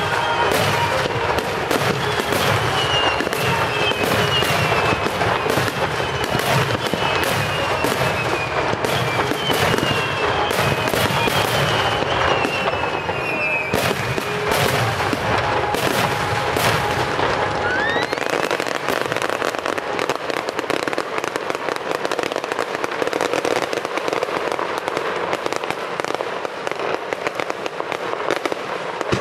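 Fireworks display: a dense, continuous stream of cracks and pops from bursting aerial shells and fountain pieces. Over the first half, a run of high whistles falls in pitch one after another, and a single rising whistle comes a little past the middle.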